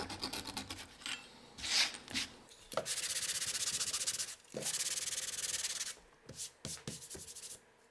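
Hand sanding with a sanding block on a maple board, flushing glued-in walnut patches at bow-tie inlays: two long, even stretches of back-and-forth rubbing from about three seconds in. A few quick, faint strokes of a flush-cut hand saw trimming the patches come first, and a few light clicks follow the sanding.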